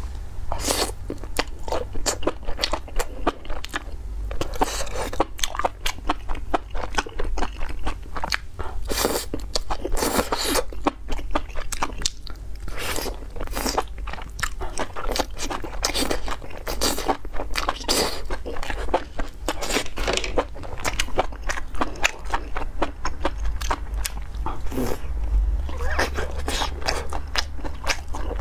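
Close-miked eating: biting, crunching and chewing spicy enoki mushrooms and skewered fried food, many short bites and chews in quick succession.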